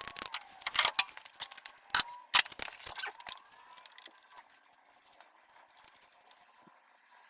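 A run of sharp metallic clicks and knocks from hands and tools working a snowmobile's rear suspension skid, the loudest about a second and two and a half seconds in. The clicks die away after about three and a half seconds, leaving only faint background noise.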